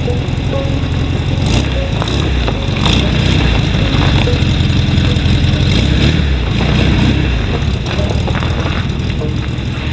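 An engine running steadily, with a few short clicks and knocks over it.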